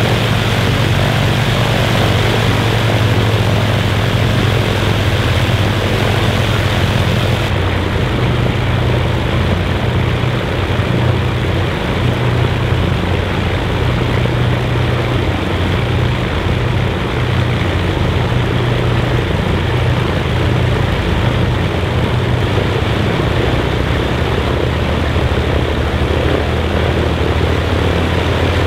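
Avro Lancaster bomber's Rolls-Royce Merlin V12 piston engines running steadily on the ground during a static engine run.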